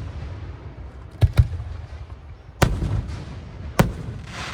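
Aerial firework shells bursting with sharp bangs: a quick pair about a second in, then single bangs about halfway through and near the end, over a continuous low rumble of other bursts echoing.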